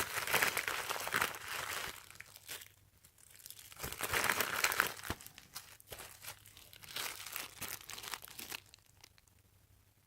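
A packaging bag crinkling as it is handled and a phone tripod clamp is pulled out of it. It comes in several irregular bursts that stop near the end.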